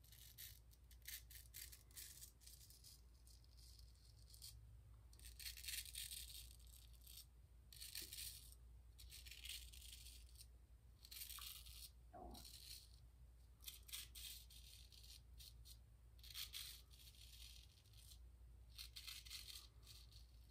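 Ever Ready 1914 single-edge safety razor scraping through lathered stubble in many short strokes at irregular intervals, each a faint, brief rasp.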